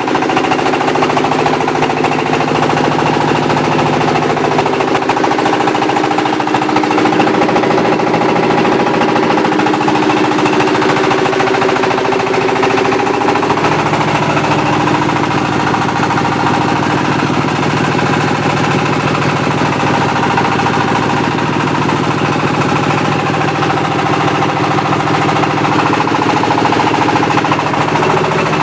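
Floating feed pellet machine (an extruder) running, with a loud steady mechanical drone and a rapid rattle; its pitch shifts between about four and thirteen seconds in, then holds steady.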